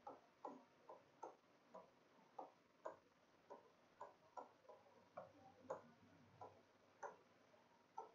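Faint, irregular ticks and taps of a stylus striking and stroking the glass of an interactive smart-board screen while a word is handwritten, about two or three strokes a second.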